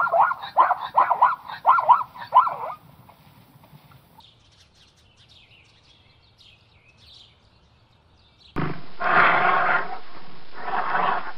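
Zebra barking: a quick series of about seven loud yelps in under three seconds. Faint high chirps follow, then from about eight and a half seconds in a brown bear growls in long, loud, rough bursts.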